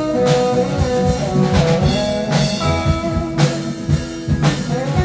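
Band playing an instrumental passage: a guitar melody over drum kit, with no singing.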